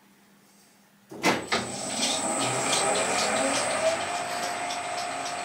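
Metal lathe switched on about a second in, its motor whine rising for a couple of seconds and then running steady, while a countersink in the tailstock chuck cuts a light chamfer on a brass washer blank.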